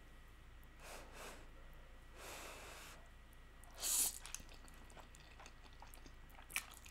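A person slurping up a mouthful of stir-fried instant noodles in one short pull about four seconds in, after a couple of soft breaths. Faint wet mouth clicks of chewing follow, with one sharper click near the end.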